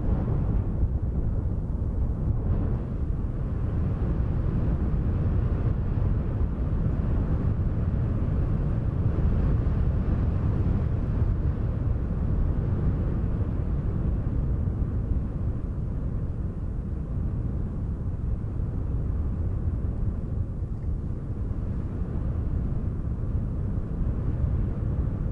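Wind noise: a steady, deep, rushing rumble that swells a little towards the middle.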